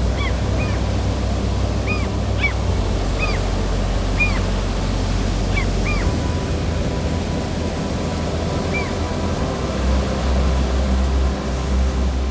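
Surf-like rumble of waves with short, high bird calls scattered through it, most of them in the first half.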